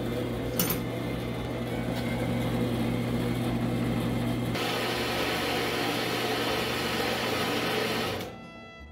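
Carolina HD10 metal-cutting band saw running: a steady electric-motor hum with the blade whirring. The sound turns noticeably hissier about four and a half seconds in, and the saw shuts off abruptly about eight seconds in.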